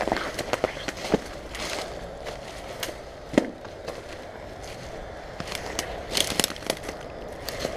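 Footsteps crunching through dry, overgrown grass and brambles, with stems brushing close to the microphone and a few sharp twig snaps.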